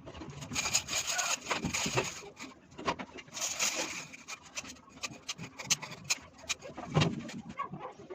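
Rough scraping and rubbing strokes of a hand tool on hard building material, two longer rasping passes in the first half, with scattered clicks and knocks.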